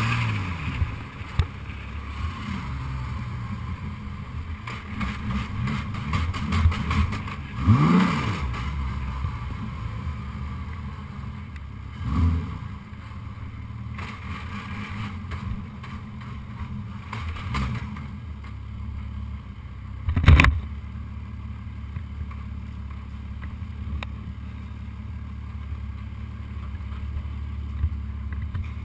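A Reynard single-seater's 3.5-litre V6 race engine running at low revs as the car rolls slowly through the pit lane, with a brief rise and fall in revs about eight seconds in. A sharp knock sounds about twenty seconds in.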